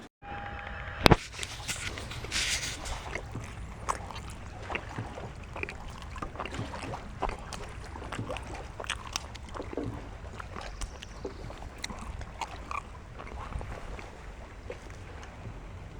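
Small aluminum canoe on the water: a steady low rumble of wind and water, with water slopping against the hull and many small scattered knocks and ticks. There is one loud knock about a second in.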